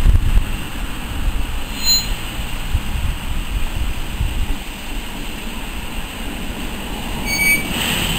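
BR Standard Class 9F steam locomotive 92203 and its tender rolling slowly along the track with a low rumble. Short high-pitched wheel squeals come about two seconds in and again near the end.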